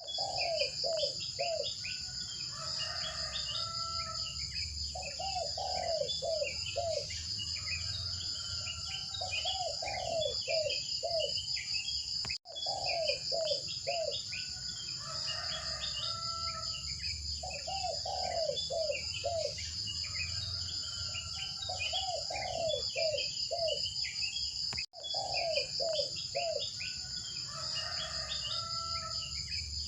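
Birds chirping over a steady, high insect drone, with a faint low rumble beneath. The same stretch of ambience repeats about every twelve seconds, cutting out for an instant at each restart: a looped nature-sound track.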